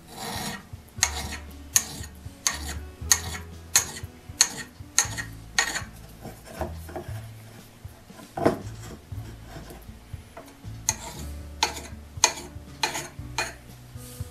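A small sharpening stone stroked against the hardened steel edge of an auger bit, honing off the burr left by filing. It goes as a steady run of short scraping strokes, about one every 0.7 s, with a pause about two-thirds through.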